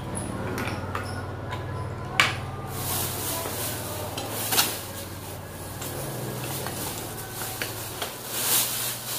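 Baby stroller parts being handled: plastic wheels knocking and clattering, with sharp knocks about two seconds in and again about four and a half seconds in, then the crinkling of the clear plastic bag around the folded stroller as it is lifted. A steady low hum runs underneath.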